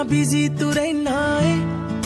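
A Punjabi pop song playing as background music: a woman's voice sings a held, wavering line over the backing instruments.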